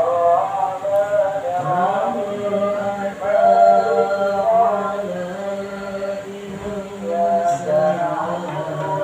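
Male voices reciting the Quran in the melodic tilawah style, with long held notes that slide from pitch to pitch; a second, lower voice joins about two seconds in and recites along.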